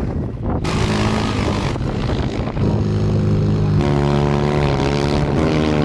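Dune buggy engines running, the pitch shifting in steps a few times as they rev up and settle.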